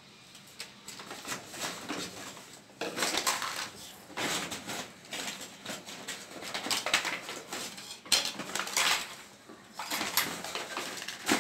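Plastic toy kitchen pieces (small pans, plates, spoons) clattering and clicking as they are picked up, moved and set down on a tabletop, in quick irregular knocks that come in clusters.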